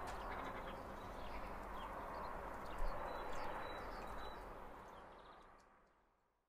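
Faint outdoor ambience: a steady hiss with scattered bird chirps over it, fading out near the end.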